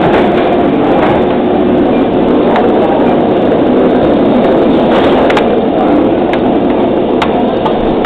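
Steady rumble of a B&M inverted roller coaster train rolling slowly through its station, with a few sharp clicks about five and seven seconds in.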